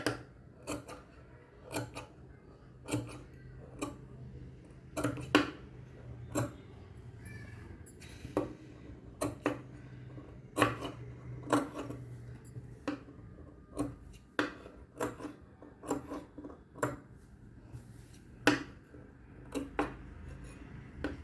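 Fabric scissors snipping small notches all around a curved neckline seam: short sharp snips, about one a second, with brief gaps between runs.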